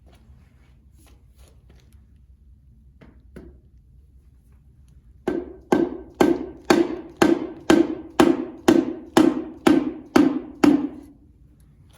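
A hammer striking metal, a dozen evenly spaced ringing blows about two a second, after a couple of faint knocks. It is driving the stuck pistons of a 1931 Rumely 6A engine loose in their cylinders.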